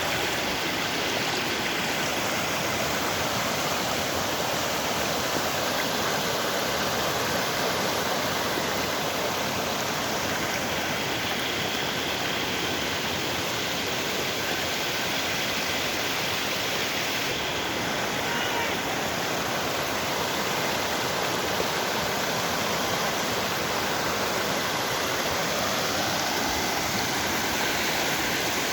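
Fast-flowing floodwater from heavy rain, a steady loud rushing of water.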